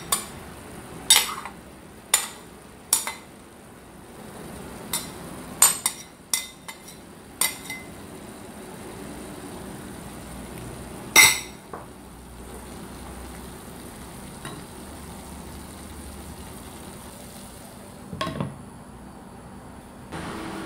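A utensil knocks and clinks against a bowl and a nonstick pan as pieces of fried pork are scraped onto broccoli: about a dozen sharp knocks in the first eight seconds, the loudest one about eleven seconds in. Underneath, the pan keeps up a low, steady sizzle. Near the end there is a short clatter as a glass lid is set on the pan.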